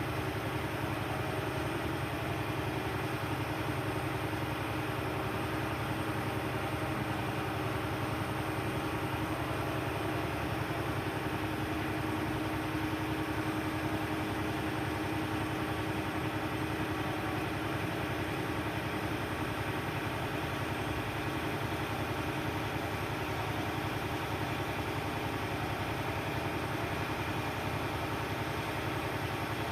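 Crane engine running steadily at a constant speed, an even hum with no changes.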